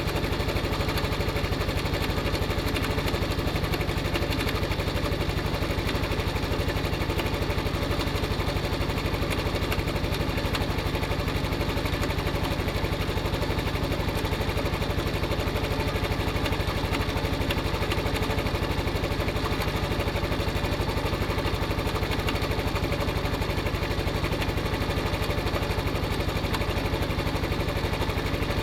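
Honda Cross Cub's single-cylinder four-stroke engine running steadily at idle, with the abnormal mechanical noise the bike makes before it is fully warmed up, which the owner links to worn rubber parts around the cam chain.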